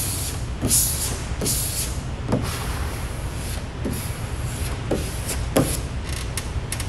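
Squeegee pushed in short strokes over air-release vinyl wrap on a car hood: about eight swishing scrapes, several with a brief rising squeak, over a steady low rumble.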